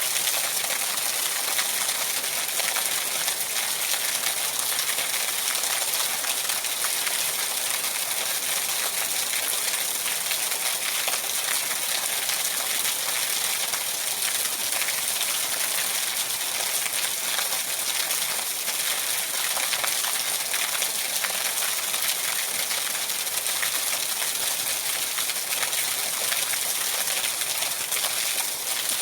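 Steady rain: an even hiss made up of many small drop ticks, with no pauses or changes.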